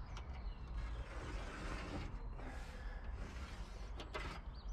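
A long corner moulding strip being handled against a box van's door frame: light rubbing and scraping with a few small clicks and knocks, the clearest near the start and about four seconds in.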